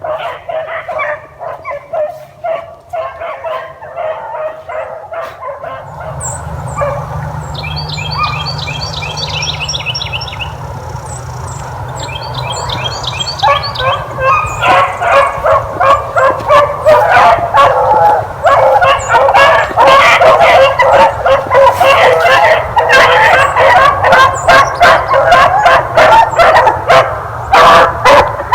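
Three beagles baying as they run a rabbit's scent trail: several voices overlapping, thinning out in the first few seconds, then swelling into a loud, continuous chorus from about halfway. A low rumble sets in a few seconds in, and a bird gives two short runs of rapid chirps in between.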